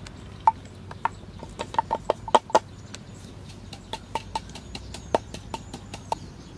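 Wooden pestle pounding chilies into a paste in a mortar: irregular knocks, a few a second, some much louder than others.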